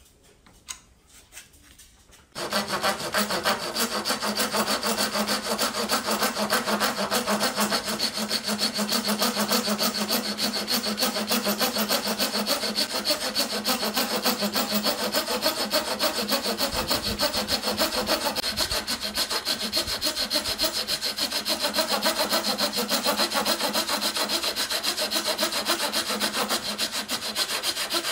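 Handsaw cutting across a hardwood board in quick, even back-and-forth strokes that start about two seconds in and run on steadily. Before that, only a few faint ticks.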